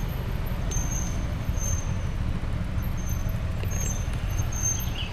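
Steady low rumble of road traffic idling at a red light, with a car and a motorbike waiting just ahead.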